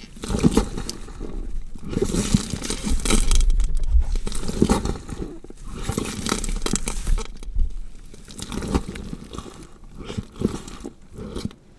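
Horror sound effect of a body being dissected: irregular bursts of flesh being cut and torn, stronger in the first half and dying away near the end.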